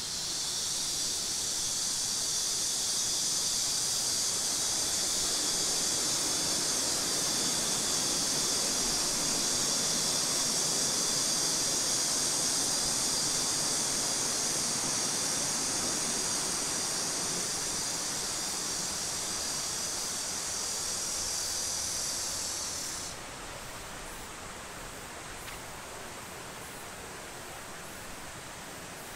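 A steady, high-pitched hiss or buzz over outdoor background noise, cutting off suddenly about 23 seconds in.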